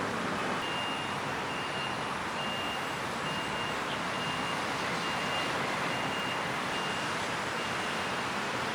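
A vehicle's reversing alarm beeping at one fixed pitch, evenly about once a second, over a steady hum of city traffic.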